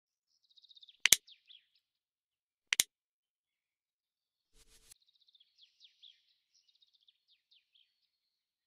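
Small birds chirping and twittering in short high calls, with two sharp clicks, one about a second in and one near the three-second mark, louder than the birdsong.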